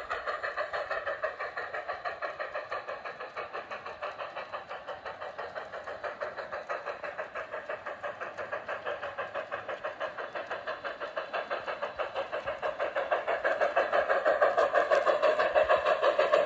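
G-scale model steam locomotive's onboard sound system giving a rapid, steady chuff of about five beats a second, getting louder in the last few seconds as the locomotive draws near.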